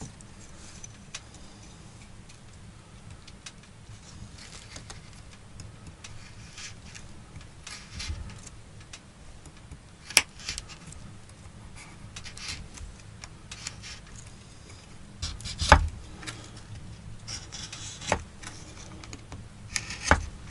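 A knife cutting and splitting thin wooden sticks on a wooden chopping block: quiet scraping of the blade on the wood, with four sharp clicks as it cuts through. The loudest click comes about three-quarters of the way in.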